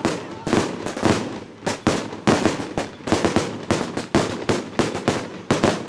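Firecrackers going off in a rapid, irregular string of sharp bangs, about three or four a second.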